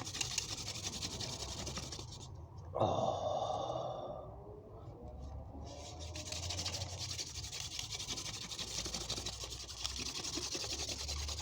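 Wooden spindle spun back and forth between the palms in a hearth board's notch for a hand-drill friction fire: a dry, scratchy rubbing. About three seconds in it pauses briefly for a short groan.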